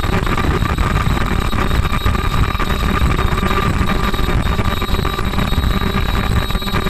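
Automatic bouffant cap making machine running: a steady, dense mechanical clatter with a constant high-pitched whine over it.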